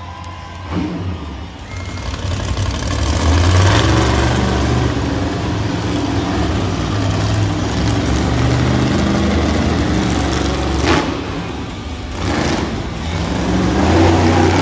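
Monster truck engine revving hard, building to full throttle a few seconds in and holding there, with a short drop near the end before it revs up again.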